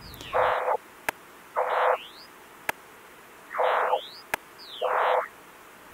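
The vOICe (Depth-vOICe) sensory substitution software turning a depth-camera image of a standing person with one arm raised into sound. Four short left-to-right sweeps of many simultaneous electronic tones play, pitch standing for height, so each sweep has a tall block of tones with a higher part where the arm is raised. Sharp single clicks fall between sweeps. The sweeps change as the person swaps which arm is raised.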